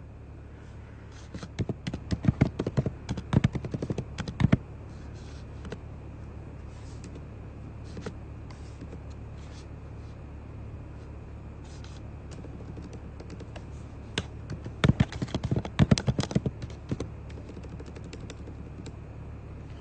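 Typing: two flurries of quick tapping clicks, one starting about a second and a half in and another about fourteen seconds in, with a few scattered taps between, over a low steady hum.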